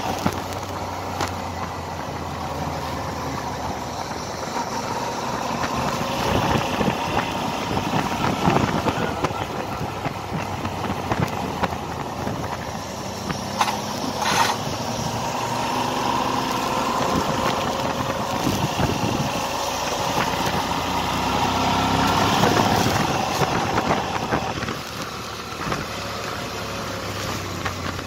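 Suzuki V-Strom DL650's V-twin engine running while the bike is ridden; its pitch and loudness rise and fall.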